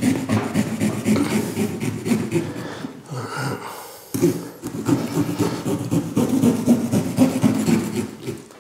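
Small serrated pumpkin-carving saw sawing through raw pumpkin flesh and rind in quick back-and-forth strokes, with a short pause about three seconds in before the sawing resumes.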